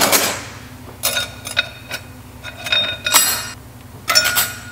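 Coast clutch plates of a 700R4 transmission being dropped one by one into the forward clutch drum: about six sharp metal clinks that ring briefly, roughly a second apart.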